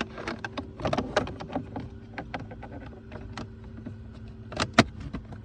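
Plastic clicking and rattling as the cabin air filter cover behind a Honda Civic's glove box is handled and fitted back into place, with two sharp snaps close together near the end. A steady low hum runs underneath.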